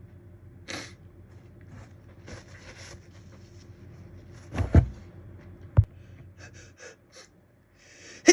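A person's gasping, hitching breaths while building up to a sneeze, with two short loud bursts a little past halfway and the next sneeze breaking out right at the end.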